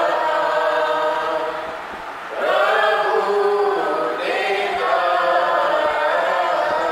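A small group of men and women singing a Gujarati hymn together in long held notes. The singing dips briefly between lines about two seconds in, then comes back in full.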